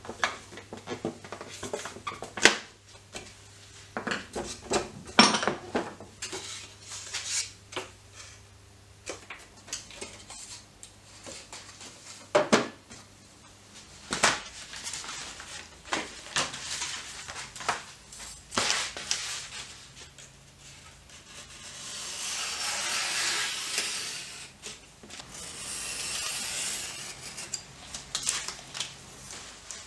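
Workbench handling sounds: a series of wooden taps and knocks as a small wooden piece is fitted to a drawer frame, then stiff card sheets being handled and cut, with two longer stretches of rustling and scraping about two-thirds of the way through.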